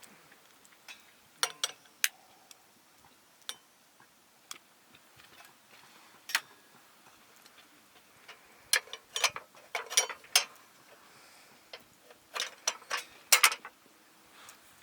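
Camp lanterns being handled and lit: scattered sharp clicks and small metallic clinks, a few single ones early and then quick clusters about nine and twelve seconds in.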